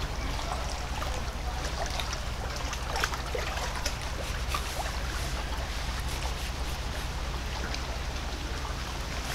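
Steady rush of flowing water, with faint small clicks and scrapes from a fillet knife cutting along a sockeye salmon's rib cage.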